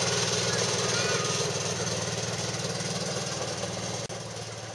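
Small utility vehicle's engine running with a fast, even chug as it drives off along a dirt track, fading as it moves away.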